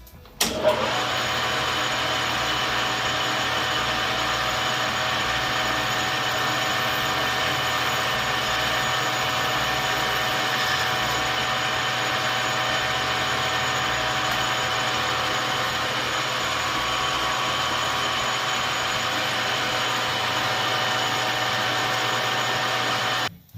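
Metal lathe running steadily while turning an aluminum part down to size. It starts abruptly about half a second in and cuts off abruptly near the end.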